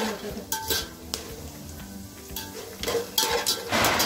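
A metal spatula scraping and clinking against a large aluminium pot in a series of short strokes, with a longer scrape near the end, as peanuts are stirred and roasted in hot oil with mustard seeds.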